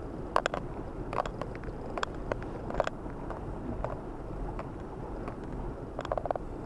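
Car driving slowly over a snow-covered road, heard from inside the cabin: a steady low rumble of engine and tyres. Sharp clicks and crackles come at roughly even intervals for the first three seconds, and again in a cluster near the end.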